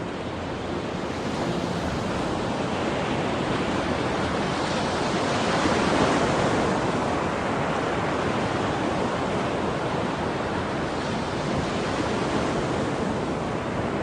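A steady rushing noise that swells around the middle and then eases off a little.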